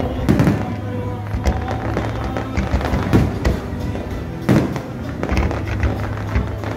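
Fireworks bursting, with repeated bangs and crackles at irregular intervals over music with a steady bass.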